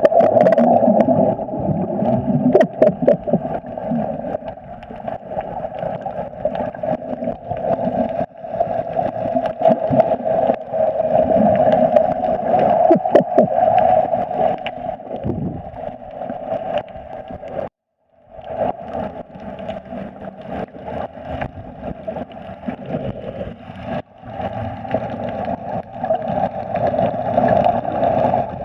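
Underwater sound picked up by a snorkeler's submerged camera: a muffled steady hum over a low rumble, with water gurgling and sloshing. It cuts out briefly about two-thirds of the way through.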